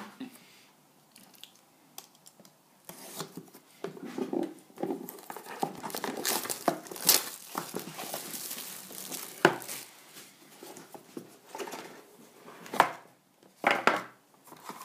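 Clear plastic shrink wrap being torn and pulled off a sealed trading-card box by hand, crinkling and crackling in irregular bursts with a few sharp snaps; it starts about three seconds in.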